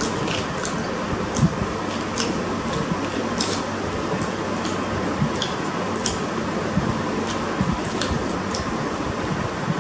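Eating by hand: rice mixed with mutton curry squished between the fingers on a plastic plate, along with chewing and lip smacks. These come as scattered, irregular wet clicks over a steady background hiss.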